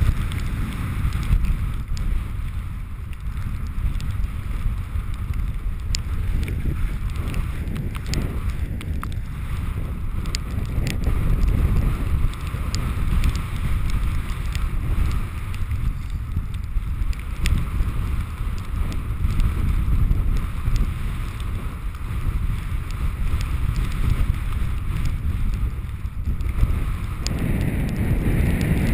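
Wind buffeting the camera microphone: a steady low rumble with a few faint clicks.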